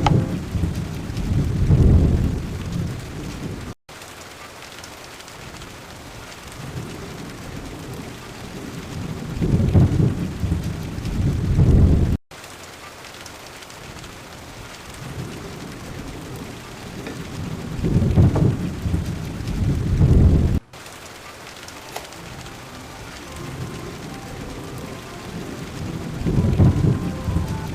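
Steady monsoon rain falling, with a low rolling thunder rumble swelling up four times, about every eight seconds. The sound cuts out for an instant three times, between the rumbles.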